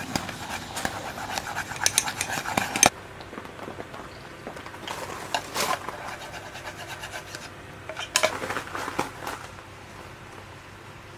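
Dishes and cutlery clinking and knocking as tableware is handled: a dense run of clicks for about three seconds, then scattered ones.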